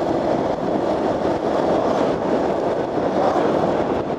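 Steady wind rush and riding noise of a moving motorcycle, heard on the rider's own microphone.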